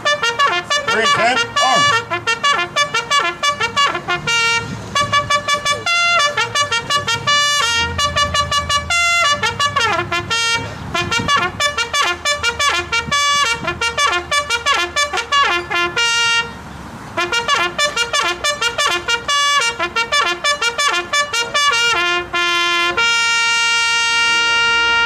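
Solo trumpet playing a ceremonial call in many short, clipped notes. It pauses briefly about two-thirds of the way through and ends on one long held note.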